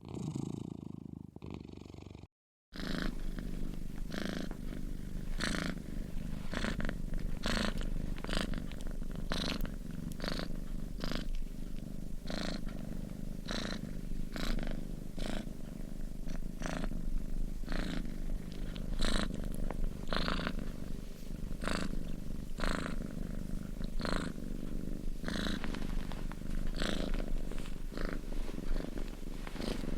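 Sleeping cat snoring: a steady low rumble with a breathy rasp on each breath, about one and a half breaths a second. The sound drops out for a moment about two and a half seconds in, then carries on a little louder.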